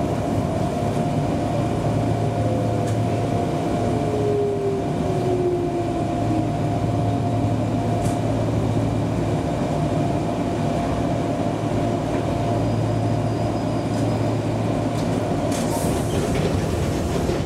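Enshu Railway electric train running on the line, a steady hum under continuous rail and running noise. A whine falls in pitch from about three to six seconds in, and a few sharp clicks come near the end.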